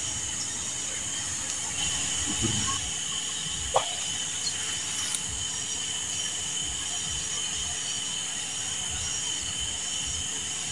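Steady high-pitched drone of insects, with one short sharp sound about four seconds in.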